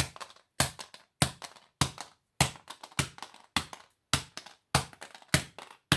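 A hammer striking a smartphone again and again at a steady pace, about ten sharp blows, roughly one every 0.6 seconds, each a hard tap with a short ring.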